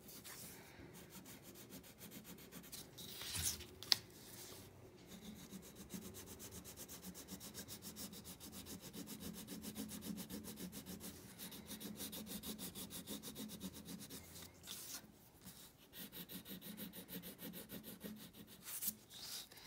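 Colouring strokes rubbing on paper: faint, fast, even back-and-forth shading, with a short break about three-quarters of the way through. A single sharp tap about four seconds in.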